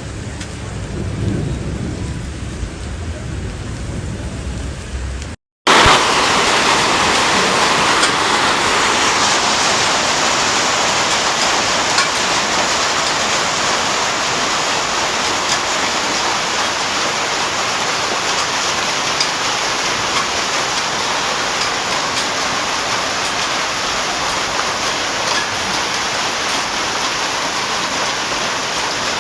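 Heavy rain pouring down in a thunderstorm, a loud steady hiss with scattered small ticks, starting abruptly about five seconds in. Before it comes a quieter low rumbling noise.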